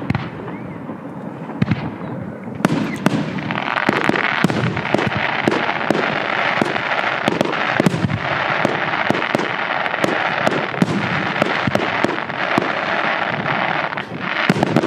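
Fireworks going off: a rapid, irregular series of sharp bangs and pops, joined about four seconds in by a dense, continuous crackling hiss.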